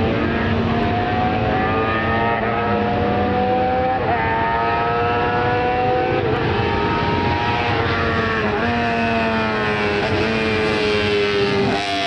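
Honda six-cylinder four-stroke GP racing motorcycle engine running at high revs, its pitch climbing steadily and then dipping at each gear change, about every two seconds, several times.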